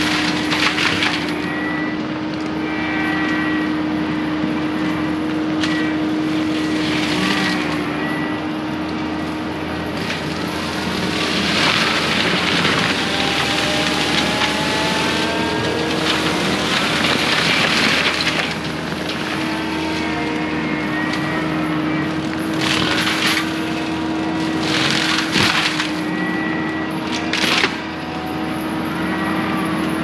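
Prinoth M450s-1600 skid steer forestry mulcher running steadily, with repeated bursts of grinding and cracking, a second or two each, as its drum chews into brush and wood.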